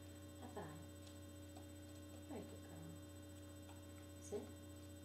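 Steady low electrical hum, with a few faint, brief sounds over it, the clearest about four seconds in.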